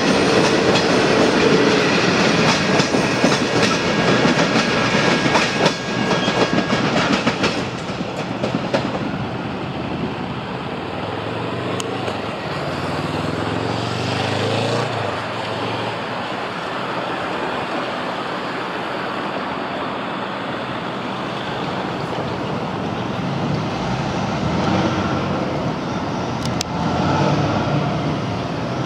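Passenger carriages of a V/Line locomotive-hauled train rolling over points and rail joints, their wheels clicking rapidly for the first several seconds. The sound then settles into a quieter, steady rumble as the train draws away.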